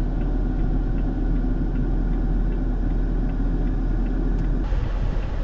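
Car running, a steady low rumble with a little more hiss near the end.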